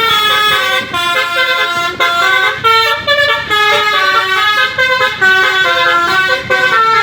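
Basuri-type 'telolet' musical bus horn playing a fast melody, loud, with short notes stepping up and down one after another without a break.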